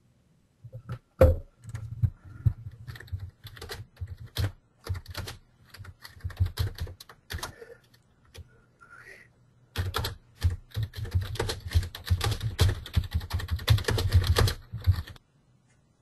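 Typing on a computer keyboard: uneven runs of keystrokes with a short pause about halfway, then a faster, denser run that stops about a second before the end.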